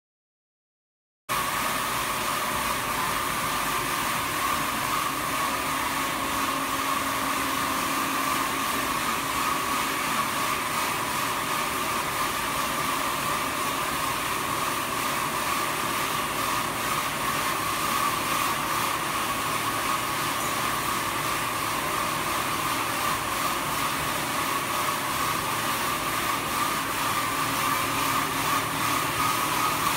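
Jonsen SD300-WJS+3D wet deburring machine running, its wide sanding belt and planetary disc brush heads giving a steady whirring noise with a strong high hum. It begins abruptly about a second in.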